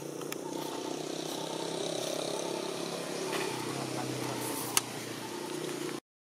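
A motor vehicle's engine running steadily, with one sharp click close to five seconds in; the sound cuts out just before the end.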